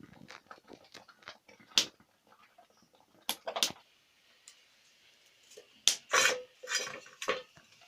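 Wooden stirring stick knocking and scraping against a cooking pot while maize-flour porridge for ugali is stirred, in irregular clacks with a few louder strikes.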